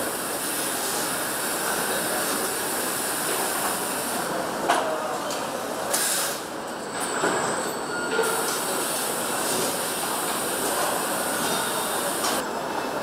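Engine assembly-line factory ambience: a steady din of machinery and hiss, with a few sharp metallic clicks, one about five seconds in and another about a second later.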